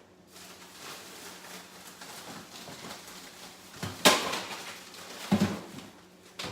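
Kitchen handling noises: a steady rustling, with a sharp knock about four seconds in and a second knock a little over a second later.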